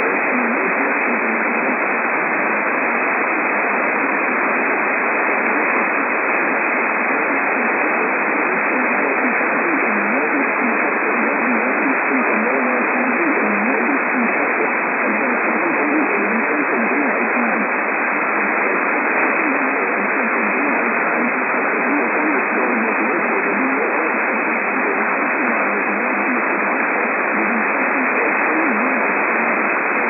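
AM radio static: a steady, even hiss from a radio receiver, thin and muffled like AM reception, unchanging throughout.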